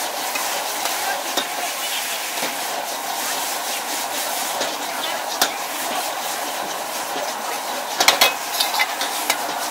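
Snails and leeks sizzling in a metal wok over a high gas flame, stirred and tossed with a metal ladle that scrapes and knocks against the wok. There is a steady hiss throughout, with sharp clacks of the ladle now and then, and a quick run of them about eight seconds in.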